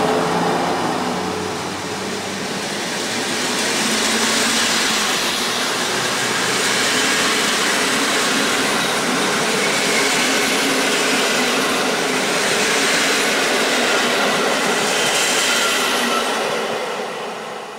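Passenger coaches of a PKP Intercity train behind an EP09 electric locomotive rolling past: a steady rumble and clatter of steel wheels on the rails, which dies away near the end as the last coach goes by.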